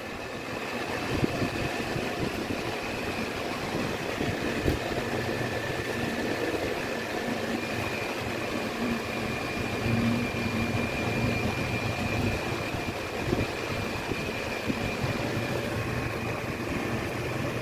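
Steady hum of a running motor with a faint high whine, and a few light handling ticks.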